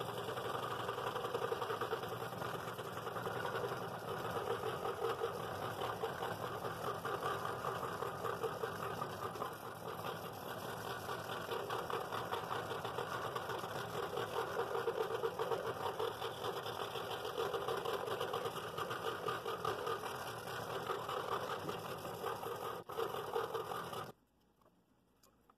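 Scroll saw running and its blade cutting through a thick wooden blank, a heavy compound cut, with a steady buzz throughout. It stops suddenly near the end as the saw is switched off.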